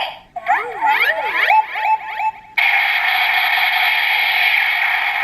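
DX GabuGabuRevolver toy morpher playing electronic sound effects through its small speaker. A warbling effect whose pitch zig-zags up and down comes first, then about two and a half seconds in a steady hissing blast effect starts suddenly and carries on.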